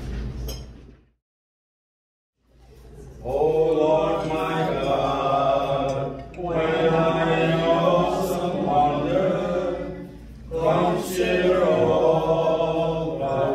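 Men's voices singing a song together without accompaniment, in long held phrases with short breaks for breath between them. Near the start the sound cuts to total silence for about a second and a half.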